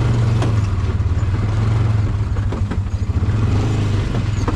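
A motor vehicle's engine running steadily as it drives, with a few knocks and rattles over the top.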